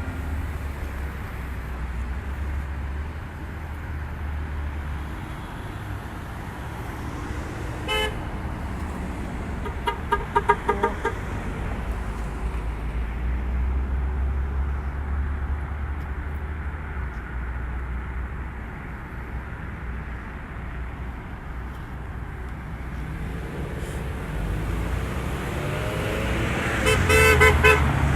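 Car horns from passing traffic, honking in support: a short toot about eight seconds in, a quick run of beeps around ten seconds, and another honk near the end, over the steady sound of road traffic.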